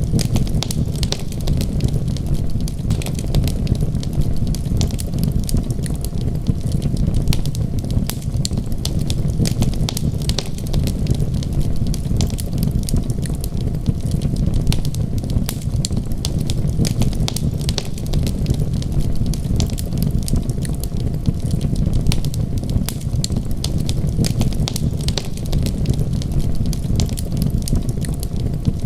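Wood fire crackling, with dense sharp pops and snaps over a steady low rumble.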